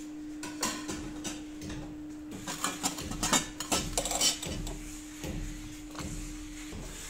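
Stainless steel tumblers clinking and knocking against each other and the shelf as they are picked up and set down: a run of sharp metallic clinks, loudest about three to four seconds in.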